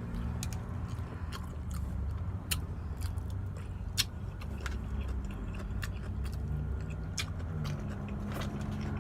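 Close-miked chewing and lip-smacking on KFC fried chicken: irregular sharp wet clicks, one louder smack about four seconds in, over the steady low hum of the truck's engine.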